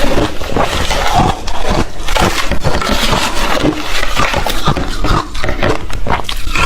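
Ice being bitten and chewed: a continuous run of crunches and sharp cracks.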